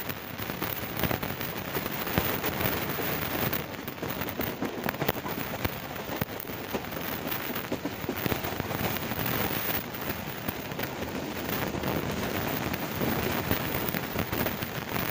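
Passenger train running at speed, heard from a coach window: a steady rush of running and wind noise with many irregular crackles, as wind buffets the microphone.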